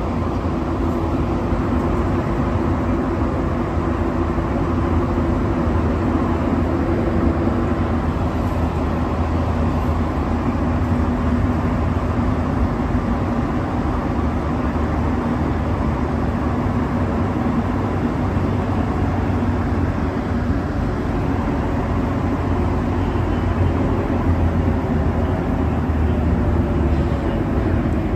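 Interior noise of a rubber-tyred Montreal metro Azur train running through the tunnel: a steady hum and rumble of motors and tyres.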